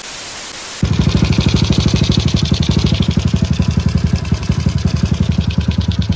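An even hiss for about the first second, then a motorcycle engine cuts in loud, running steadily with a fast, even exhaust beat.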